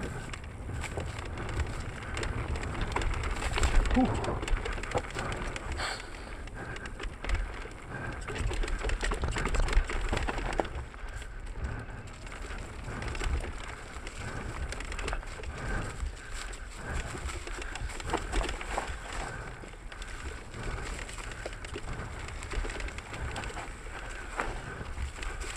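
Mountain bike rolling down a dry dirt forest trail: tyres on dirt and roots, with the chain and frame rattling in scattered clicks and knocks over a low rumble of wind and ground vibration on the bike-mounted camera.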